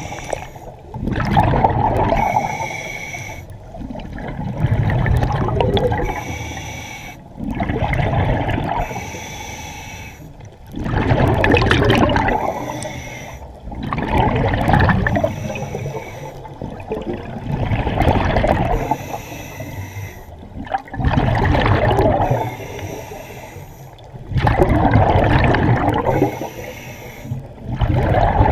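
Scuba diver breathing through a regulator underwater: each drawn breath is followed by a gurgling rush of exhaled bubbles, in a steady cycle about every three seconds.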